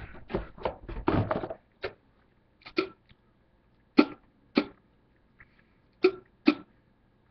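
A man making short, sharp throat sounds, six in all, some in pairs, after a brief low mumble at the start. He is reacting to loose wintergreen dip tobacco in his mouth.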